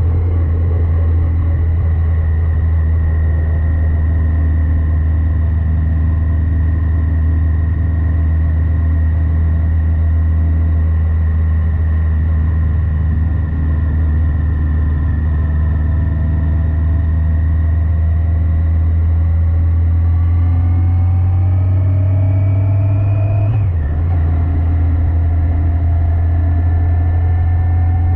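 Yamaha FJR1300AE inline-four engine running on the road, heard over a steady low rumble. Its pitch eases slowly, then climbs as it accelerates, drops sharply with a gear change about three-quarters of the way through, and climbs again.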